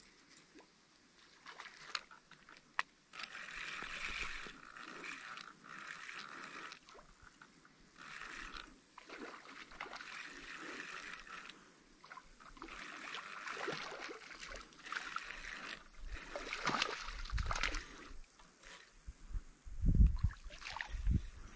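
Fishing reel being cranked to bring a lure back across the water, a whirring that runs in stretches of a few seconds with short pauses, after a sharp click about three seconds in. Near the end come a few low thumps.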